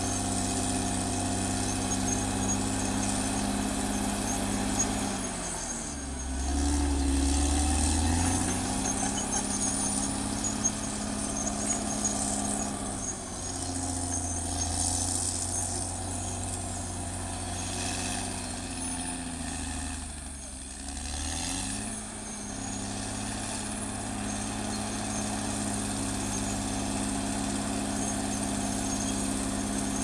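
Caterpillar D6R XL crawler bulldozer's diesel engine running steadily. Its pitch sags twice for several seconds and picks back up, as the engine takes load and recovers.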